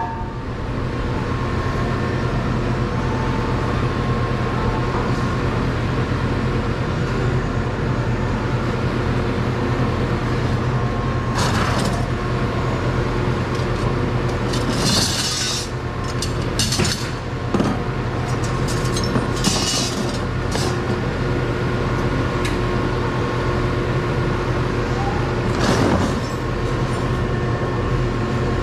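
Steady low machinery drone, with a few short clanks and rattles of scrap metal being handled in a plastic tub.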